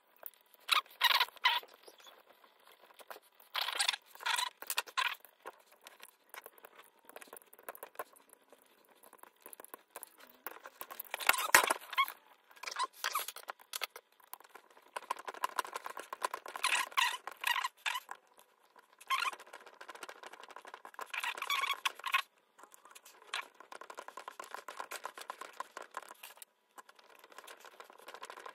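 Hands handling and working on a plastic RC car chassis and its small parts: irregular clicks, taps and scratching in short clusters with brief pauses between them.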